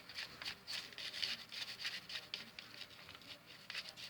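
Homemade slime of glue, shaving cream and contact solution being stirred by hand, making quick irregular clicks and smacks, several a second.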